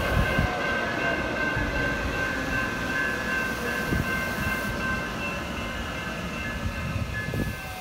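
RTD A Line Silverliner V electric commuter train rolling past close by: a steady rumble of wheels on rail with a high steady whine over it, and a few sharp knocks as wheels cross rail joints.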